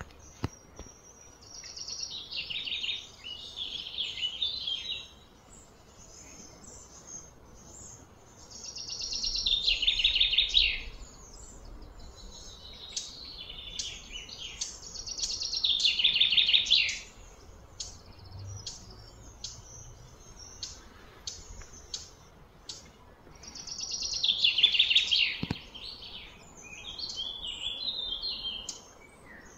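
Birds singing: four loud, fast-trilled high phrases of about two seconds each, several seconds apart, with short high chirps in between.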